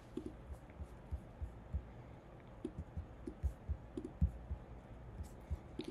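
Faint, irregular computer mouse clicks with soft knocks, several scattered over a few seconds.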